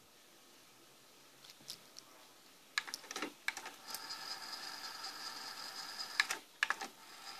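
Sony three-head cassette deck transport clicking as its buttons are pressed and the mechanism engages about three seconds in, then a steady whir as the tape fast-winds. Near the end more clicks come as it switches mode, and the whir starts again.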